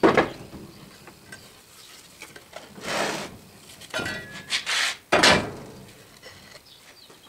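A metal molding flask full of rammed sand being handled on wooden molding boards: a sharp knock at the start, then scraping rubs and wooden clunks as a bottom board is laid on the drag, with another sharp knock about five seconds in.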